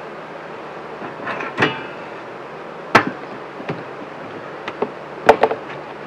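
A few sharp knocks of wooden beehive boxes and lids being handled: one about three seconds in and two quick ones near the end, over a faint steady background.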